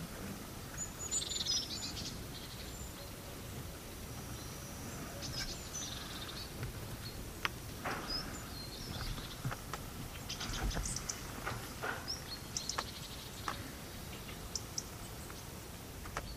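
Small birds chirping on and off in short high calls over a steady low rumble, with a few sharp clicks about halfway through.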